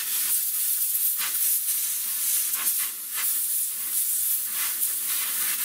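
Compressed-air blow gun blasting into a fuel-line quick-connect fitting: one long, loud hiss with small surges, blowing out WD-40 and dirt so the connector releases more easily.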